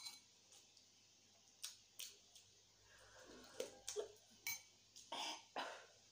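Quiet close-miked eating sounds: scattered wet clicks and short smacks of chewing and lips, with a spoon knocking and scraping in a bowl of pork bone soup about three to four seconds in.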